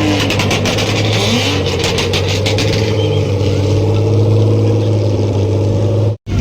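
A car engine held at steady revs, with rapid crackling over the first couple of seconds; the sound cuts off abruptly just before the end.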